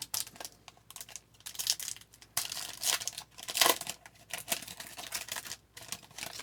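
A foil hockey card pack wrapper being crinkled and torn open by hand: a run of irregular crackling rustles.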